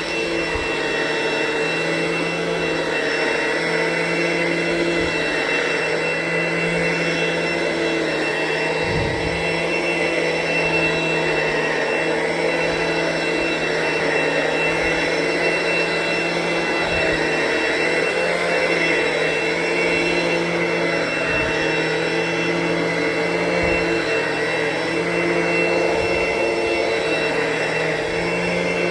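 ProTeam ProForce upright vacuum running steadily over carpet: a constant motor whine with a high steady tone, and a few soft low bumps as it is pushed.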